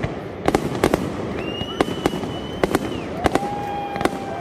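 Fireworks display: sharp bangs of bursting shells about twice a second over a constant crackle. Two long steady whistles sound partway through, a high one followed by a lower one near the end.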